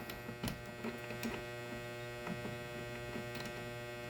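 Steady electrical hum with a few light, scattered clicks and taps of small parts being handled at a watchmaker's lathe.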